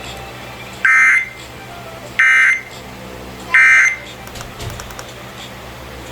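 Emergency Alert System end-of-message data bursts from a broadcast receiver: three short, shrill digital squawks about 1.3 seconds apart, the signal that closes an EAS test message.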